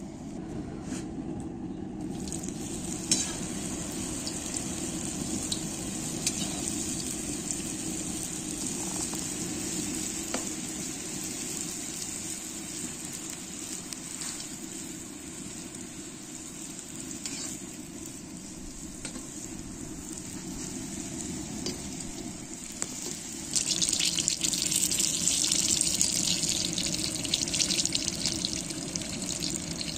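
Hot oil sizzling and bubbling in a cast-iron kazan as chebureki and then chuchvara dumplings deep-fry. The sizzle turns louder and more crackly for the last several seconds.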